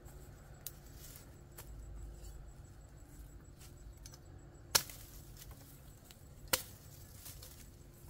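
A machete chopping through cassava stalks: two sharp cuts about two seconds apart in the second half, with a few fainter clicks before them.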